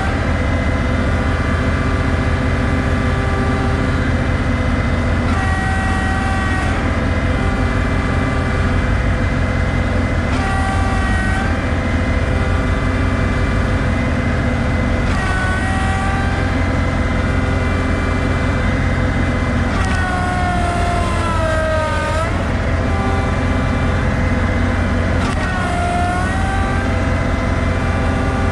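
A vehicle engine running steadily, its note wavering about every five seconds, with a longer dip in pitch about two-thirds of the way through.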